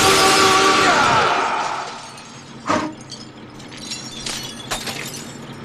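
A giant cartoon horn blasting a held chord of several tones, which dies away with a falling pitch about a second in, over a car windshield shattering, the bursting glass loud and hissing. The glass noise fades over the next second or so, then loose pieces tinkle and click a few times as they fall.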